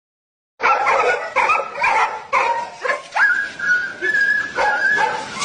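Dog yelping in a run of short, high, pitched cries, with one long high whine held for over a second near the middle.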